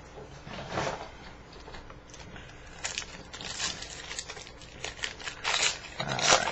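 Plastic wrapper of a baseball card pack crinkling and tearing as hands work it open, in several bursts of rustling.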